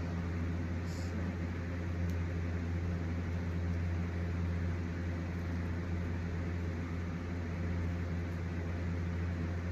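Steady low electrical hum with an even hiss from a running appliance motor, unchanging throughout.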